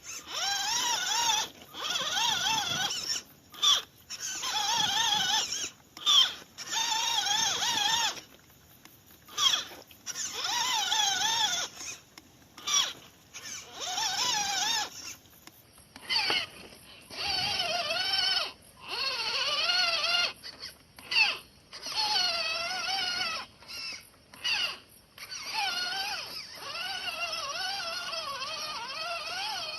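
Electric motor and gearbox of an MN99S RC off-road truck whining in repeated short throttle bursts, the pitch wavering up and down as the load changes on the slippery ground. In the second half the bursts run longer and lower in pitch.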